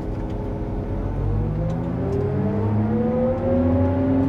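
John Deere 8800i forage harvester's engine speeding up, its pitch rising steadily and its sound getting louder from about a second in.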